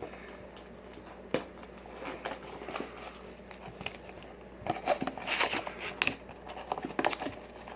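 Plastic wrapping and a small cardboard blind box being unwrapped by hand: crinkling and rustling with small clicks and taps, sparse at first and busier and louder about halfway through.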